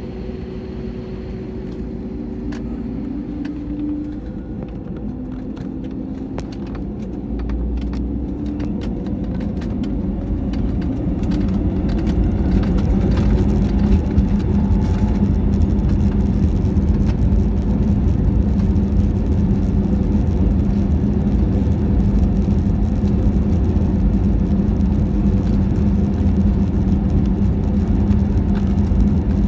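Airbus A320neo's Pratt & Whitney PW1127G geared turbofans spooling up to take-off thrust, heard inside the cabin: a rising whine over a low rumble that grows louder during the first half, then holds steady and loud as the aircraft rolls down the runway.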